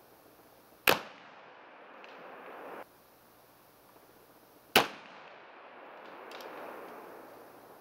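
Two shots from a .45 calibre black-powder derringer, about four seconds apart, each a sharp crack with a short ring after it. A faint click follows a second or so after each shot.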